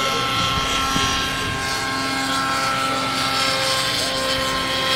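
Radio-controlled helicopter in flight: a steady high whine from its motor and rotor, several tones held with small shifts in pitch.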